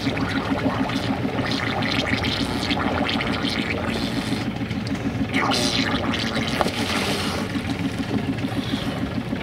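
Sailing yacht's diesel engine idling in neutral with a steady pulsing hum, while water splashes against the boat, most strongly a little past halfway.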